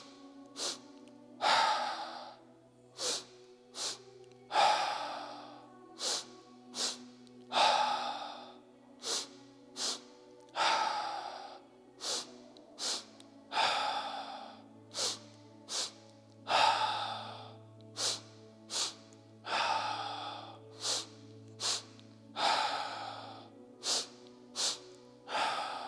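A person doing a double-breath exercise: two short, sharp inhales through the nose followed by a long, heavy exhale, repeating about every three seconds.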